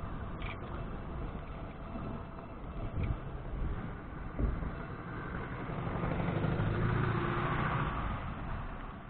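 A road vehicle passing by: the sound grows louder to its peak about seven seconds in, then fades. There are a few short knocks earlier on.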